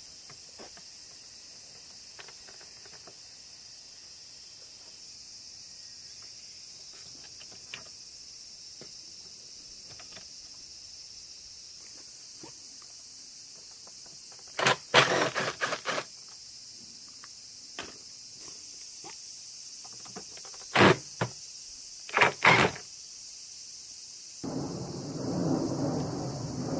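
Clusters of sharp clicks and clatter from parts being handled, over a steady high hiss; a rough rushing noise starts near the end.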